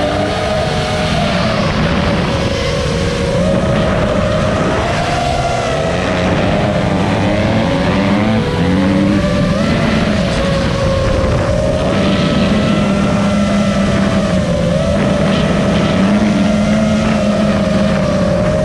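FPV racing quadcopter's brushless motors (Cobra 2205 2500kv) and propellers buzzing, the pitch wavering up and down as the throttle changes. Motocross bike engines rev at a lower pitch underneath.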